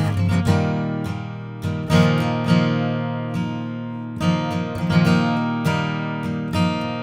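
Gibson Hummingbird Sustainable dreadnought acoustic guitar, walnut back and sides, with chords strummed and picked and left to ring. A fresh stroke comes every half second to a second.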